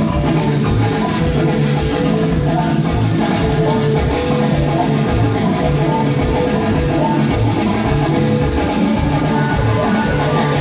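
Live band playing an instrumental passage at a sound check, with a steady beat.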